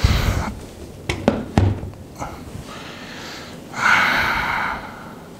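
Handling noises while tools and wood are moved about on a workbench: a low thump at the start, two sharp knocks a little over a second in, then a breathy hiss lasting about a second, about four seconds in.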